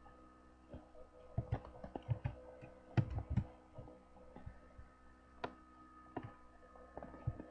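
Computer keyboard keystrokes and mouse clicks, irregular. There is a cluster of keystrokes from about one and a half to three and a half seconds in, then a few scattered clicks, over a faint steady hum.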